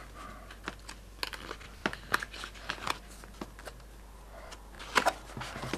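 Soft clicks and rustles of hands handling the pages of a glossy paper brochure on a table, with a louder couple of rustles about five seconds in.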